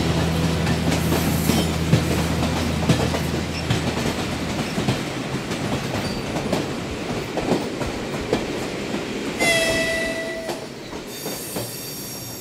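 Small kiddie ride train running along its rail track, wheels clicking steadily over the track. A low hum sounds for the first few seconds. A short pitched tone comes about nine and a half seconds in, and a higher tone near the end.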